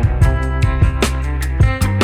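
Background music: a pop song with guitar and a steady beat.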